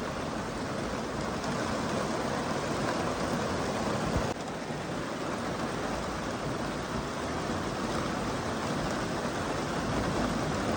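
Steady rain falling, a dense even hiss of drops with no let-up. A single brief thump sounds about four seconds in.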